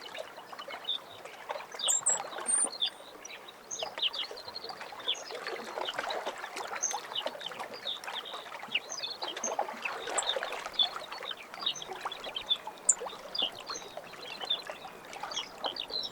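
Birds chirping in the early morning, with many short high calls throughout, over small lake waves lapping softly in slow swells every few seconds.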